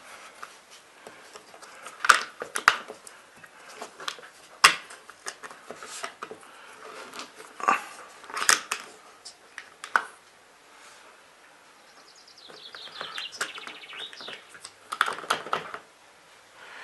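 Handling noise of electrical wires being bent into a loop and pushed into a wall back box: scattered sharp clicks and short rustles, with a quick falling run of faint ticks about two-thirds of the way through.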